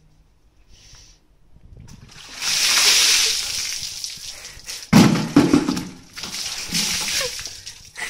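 Water splashing and sloshing, a bucket of ice water dumped out. The pour starts about two seconds in, and a heavy splash comes about five seconds in, with more splashing after it.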